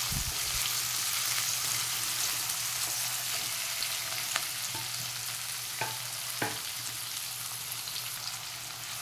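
Sliced onions sizzling in hot oil in a metal kadai, stirred with a silicone spatula, with a few light knocks about halfway through.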